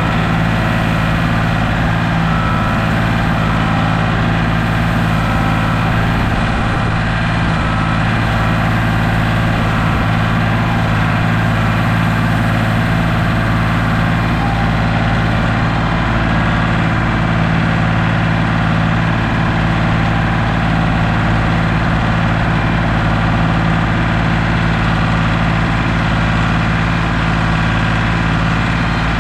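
Large engine running steadily at a constant speed, loud and close, with no revving or change in pitch.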